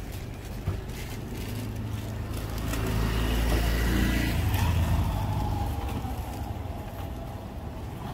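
A motor vehicle passing close by, its engine sound growing to a peak about four seconds in and then fading away, with a slight falling pitch as it goes past.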